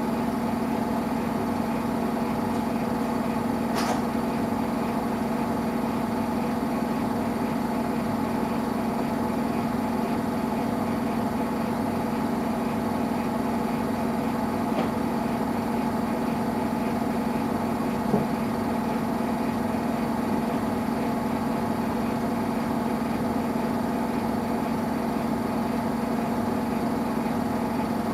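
Samsung Eco Bubble washing machine running mid-cycle with a steady motor hum, with two faint clicks.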